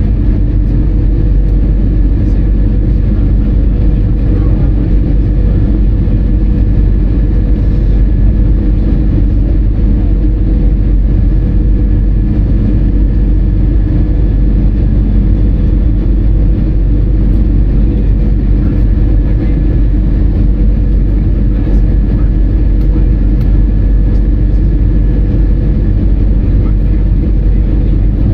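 Steady, loud rumble of an Airbus A320-200 airliner in flight, heard inside the cabin: even engine and airflow noise with a faint steady hum held on two pitches.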